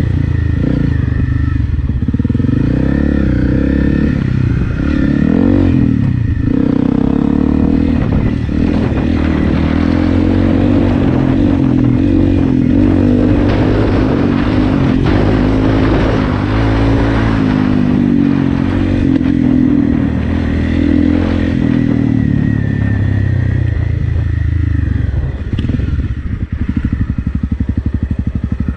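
Honda CRF250 Rally's 250 cc single-cylinder four-stroke engine, fitted with an FMF Powercore 4 exhaust, running under way on a dirt trail, its pitch rising and falling as the throttle is worked. Near the end it drops back and settles into a lower, even beat.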